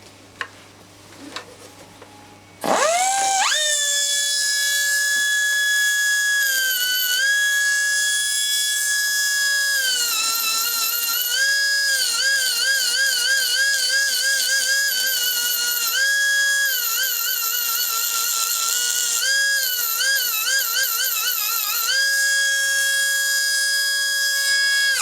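A high-speed grinder spins up with a sudden high whine, removing metal from a Ducati connecting rod to bring the rods to matching weights. Its pitch dips and wavers again and again as it is pressed into the rod, then it shuts off just before the end. A couple of light clicks come before it starts.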